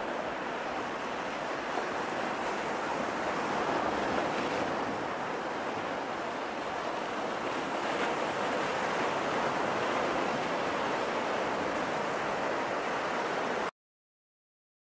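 Ocean surf: a steady wash of waves on the shore, swelling and easing gently, that cuts off abruptly near the end into silence.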